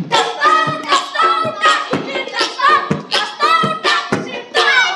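A group of children's voices calling out and chanting in quick succession, with sharp claps between the calls.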